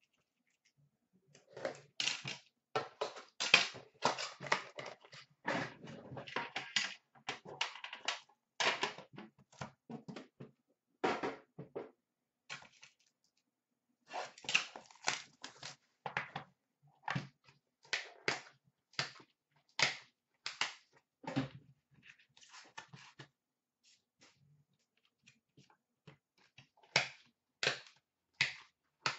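Irregular bursts of crinkling and rustling as a hockey card pack's wrapper is torn open and the cards handled, with a few light knocks; two short lulls partway through.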